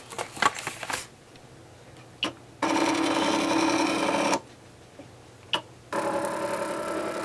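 Cricut die-cutting machine at work: its carriage motor runs steadily for a couple of seconds twice, with single clicks from the cutting head between the runs.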